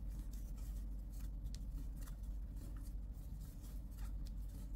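Faint rustling and light scattered ticks of 3 mm flat polyester cord rubbing over a 5 mm metal crochet hook as stitches are worked, over a steady low hum.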